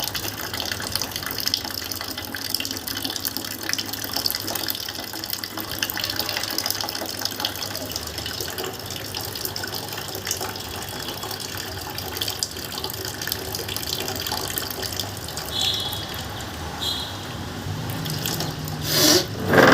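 Lukewarm salt water pouring steadily through the nose during jal neti nasal rinsing, running out of the nostril into a basin. A brief loud burst comes near the end.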